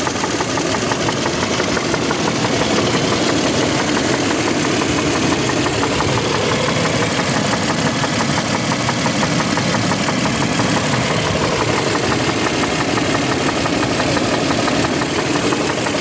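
Toyota 1GR-FE 4.0-litre V6 of a 2007 Land Cruiser Prado 120 idling, with a fast, even knocking tick under the bonnet that keeps time with engine speed. The knock comes only at idle and fades as revs rise; the owner notes that many 1GR-FE engines make it.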